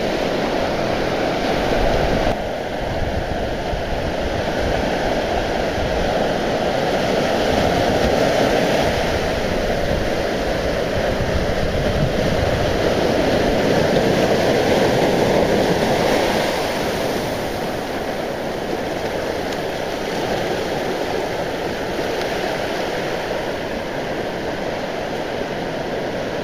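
Sea surf breaking and washing up a sandy beach: a steady rushing wash, swelling a little louder for a few seconds midway.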